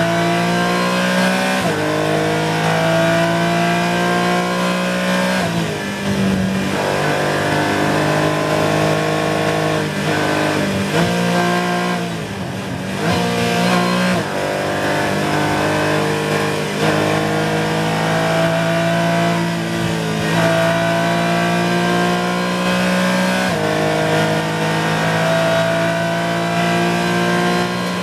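Porsche 718 Cayman GT4 race car's flat-six engine heard from inside the cockpit, running at high revs under full throttle. The pitch climbs steadily in each gear and drops back at each shift or lift, several times, with a short lift off the throttle about twelve seconds in.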